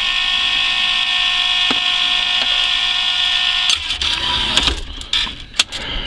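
Claw crane machine whining steadily as the claw lowers. The whine stops after almost four seconds, followed by a few clicks and low knocks as the claw settles into the plush toys.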